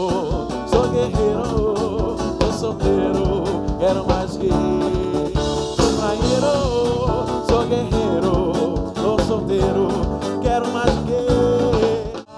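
Band music with a man singing, a steady beat under a wavering vocal line; the music breaks off briefly near the end.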